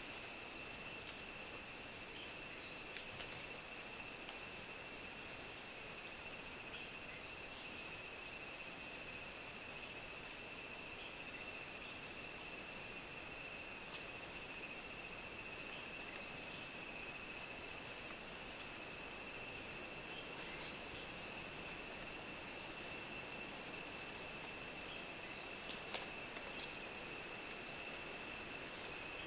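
Steady high-pitched insect chorus holding two unbroken tones, with brief chirps scattered through it and one sharp tick near the end.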